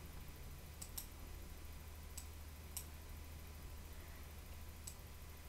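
Four sharp computer mouse clicks a second or so apart, over a faint low steady hum.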